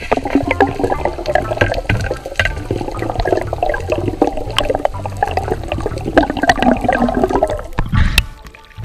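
Water rushing and bubbling around an underwater camera as a diver swims, full of small clicks. Near the end there is a sharp splash as the camera breaks the surface, and the sound changes.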